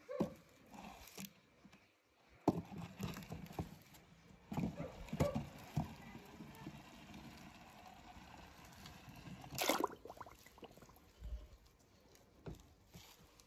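Faint knocks and rattles of a plastic toy monster truck rolling over a ramp of wooden craft sticks, then a short splash near ten seconds in as it drops into a tub of water.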